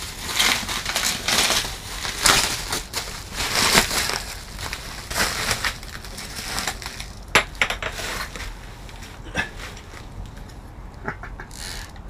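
Plastic bag crinkling and rustling as a large conventional fishing reel is unwrapped. Then a few sharp clicks as the metal reel is handled.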